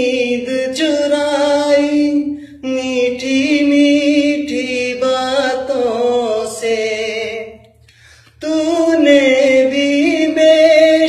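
A man singing a Hindi song unaccompanied, with long, wavering held notes. His voice breaks off briefly about two and a half seconds in and again about eight seconds in, then carries on.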